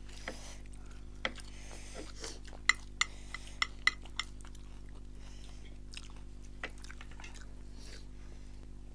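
Eating utensils clinking and scraping against bowls and plates. The clinks are irregular, with a quick run of sharper ones about three to four seconds in.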